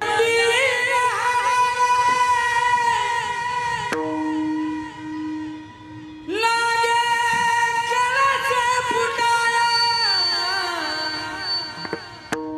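A bhajan singer's voice in a long wordless alaap: two drawn-out sung phrases with ornamented turns and slides. In the gap between them, about four seconds in, an accompanying instrument holds a steady note.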